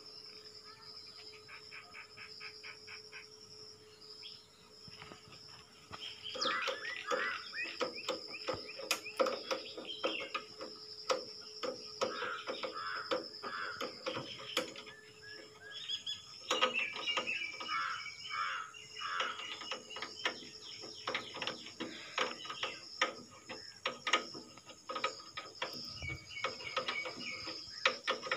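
Birds chirping in repeated short phrases over a steady high insect drone. Many light clicks and taps from hand work on the power tiller's clutch cable and handlebar lever.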